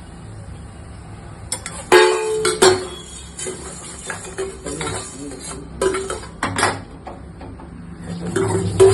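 Metal utensil scraping and clinking against a kadai while urad dal and chana dal are stirred as they dry-roast. Irregular clatters start about two seconds in and recur through the rest.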